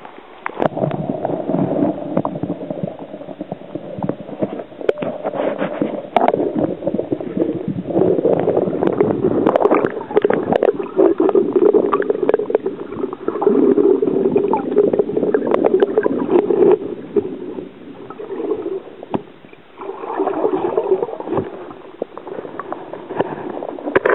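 Muffled water churning and sloshing with scraping clicks as a hand-drill spindle is spun against a fireboard underwater. It breaks off briefly near the end, then resumes.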